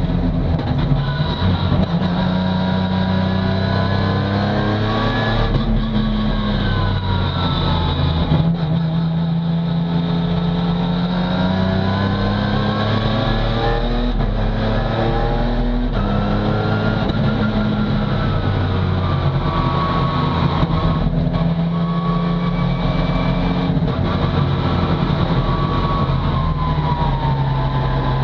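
BMW E36 STC race car's S54 straight-six engine heard from inside the cockpit at racing speed, revving hard and working through its sequential gearbox: the pitch climbs on each pull and drops at several gear changes, rising and falling with the corners.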